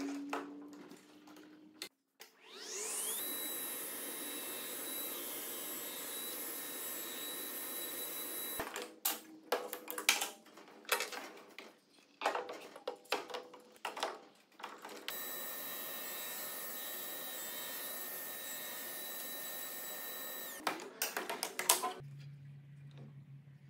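Sliding table saw spinning up and running with a steady high whine while a clamped hardwood lattice glue-up is pushed through on the sliding table. It runs twice for several seconds each time, with clicks and knocks of handling and clamps between the runs.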